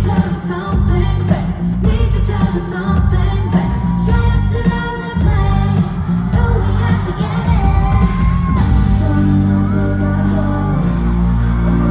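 Live K-pop song with female singing over a heavy, steady bass beat, played loud through the concert sound system.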